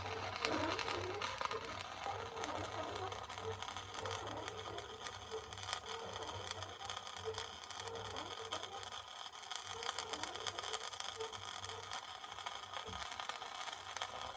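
Electric arc welding: a steady crackle and sizzle of the arc with many fine pops, run as a long arc, which makes it sputter. A low hum underneath fades out near the end.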